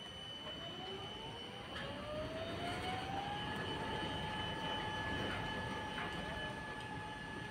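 Manlift drive motor whining as it speeds up, its pitch rising smoothly for about three seconds and then holding steady, over a constant high-pitched whine.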